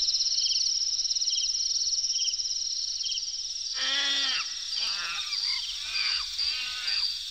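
Nature-sound recording on an ambient music soundtrack: high, rapid chirping throughout, and from about four seconds in, four harsh animal calls in a row, each about half a second long.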